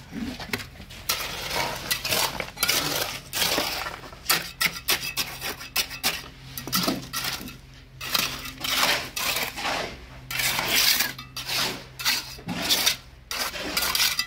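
Steel masonry trowel scraping and patting wet concrete, spreading it into wooden stair forms in many short, irregular strokes.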